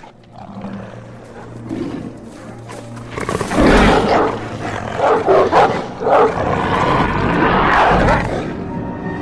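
Monstrous mutant dogs snarling and growling, a film creature effect, starting loud about three seconds in and coming in several harsh bursts. A low drone of dark film score runs underneath.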